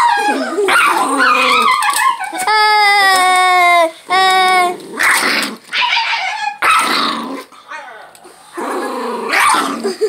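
Small dog growling and snarling as it bites at a plush Yoshi toy, with yips and two long, high whining cries about a third of the way in.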